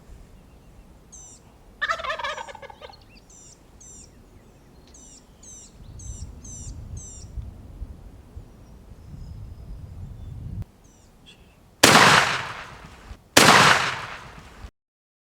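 Rio Grande turkey gobbling once about two seconds in, with small birds chirping around it. Near the end come two loud shotgun blasts about a second and a half apart, each dying away quickly.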